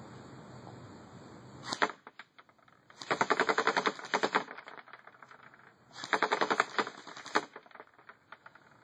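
Airsoft AK47 rifle firing on full auto: a very short burst about two seconds in, then two longer bursts of rapid shots, each about a second and a half long, with a few scattered clicks after them.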